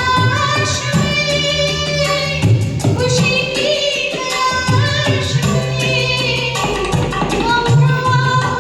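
Karaoke performance of a Bollywood film song: a singer over a backing track with a steady percussion beat and bass.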